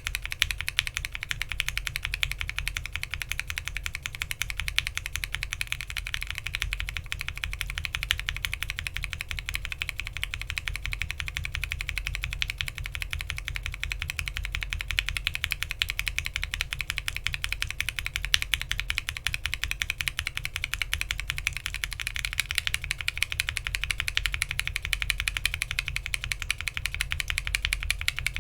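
Continuous fast typing on a Bakeneko60 mechanical keyboard with an FR4 plate, PBT keycaps and lubed NK Cream linear switches fitted with swapped stems: a dense, even clacking of keystrokes. The stems change from Gateron Ink to Gateron Milky Yellow about six seconds in, and to Cherry MX near the end.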